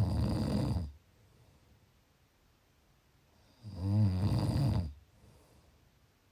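A person snoring: two snores about four seconds apart, each lasting about a second, with quiet breathing between them.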